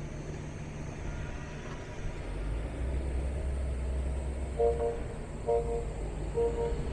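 Geely Geometry car pulling away slowly during a test for a noise at pull-off, with a low hum from the drive growing about two seconds in. From just past the middle an electronic warning beep repeats about once a second.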